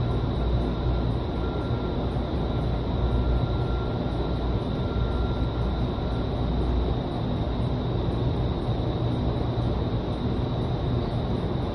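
Vertical wind tunnel running: a steady rush of air and fan noise with a faint steady high whine, as air blasts up through the flight chamber.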